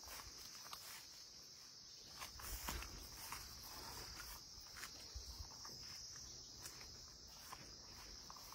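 Crickets trilling steadily in a high, unbroken band, with occasional soft footsteps and faint rustles.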